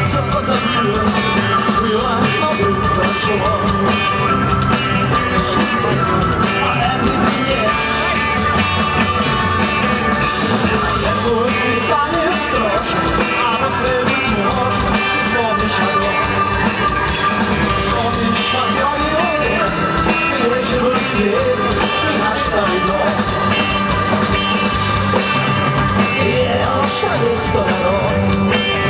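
Rock-and-roll band music playing loud and continuous, with a steady beat.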